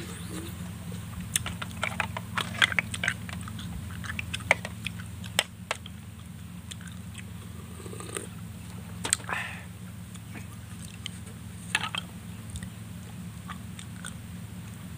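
Close-up mouth sounds of a person eating cooked snails: sucking the meat out of the shells and chewing, with sharp wet clicks and smacks that come thickest in the first few seconds and then every second or two. A steady low hum runs underneath.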